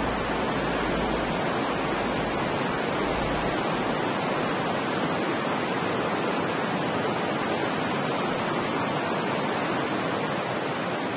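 Steady rushing of the underground Reka river.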